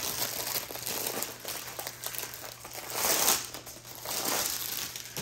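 Clear plastic sleeve around a rolled diamond painting canvas crinkling as it is handled and set down on the counter, loudest about three seconds in.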